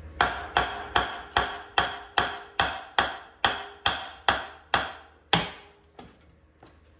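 A hammer striking the flywheel nut threaded onto the crankshaft of a Tillotson 212 engine, about a dozen sharp metallic blows at two to three a second, each ringing briefly. The blows are struck while the flywheel is pried, to shock it free of the crankshaft, and a few lighter taps follow after the last blow.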